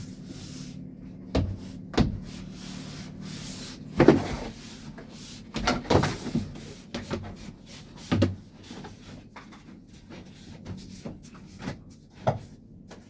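Rubber door seal being pressed and knocked into place around a truck's door opening: a string of irregular thumps and knocks, the loudest about four seconds in and a cluster around six seconds.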